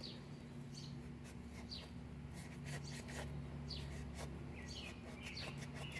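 Light scraping and rubbing as carbon and grime are cleaned off a boat starter part by hand, in short scratchy strokes. Birds chirp in short falling calls over a steady low hum.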